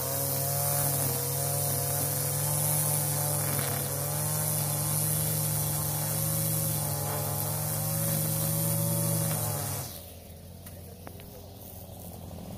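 Gas string trimmer running at high revs while edging grass along a concrete sidewalk, a steady buzzing drone that wavers a little in pitch. About ten seconds in the sound drops suddenly to a much lower level.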